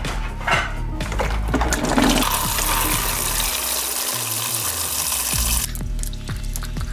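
Engine coolant gushing and splashing out of a 2005 Jeep Wrangler TJ's cooling system as it is drained. A steady rushing hiss starts about two seconds in and cuts off abruptly near the end.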